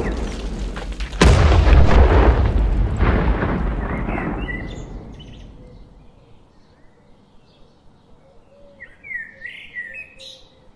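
Explosion blasts: a rumble is already fading when a second sharp blast hits about a second in, then it dies away over several seconds. A few faint bird chirps near the end.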